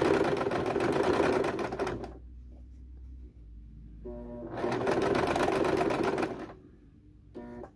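Electric sewing machine zigzag-stitching a coil of cotton rope, running in two bursts of about two seconds each with a quieter pause between them. A short whirring comes just before the second burst and again near the end.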